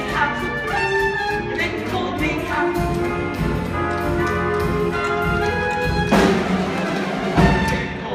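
Pit orchestra playing a brassy, jazzy show tune, with trumpets and trombones to the fore. Quick, sharp clicks of tap shoes on the stage run over the music. A louder crash comes about six seconds in.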